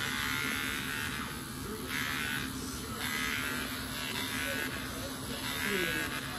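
Wahl cordless hair clipper running with a steady electric buzz while clipping a dog's fur. The buzz turns harsher in stretches of a second or so as the blades work through the coat.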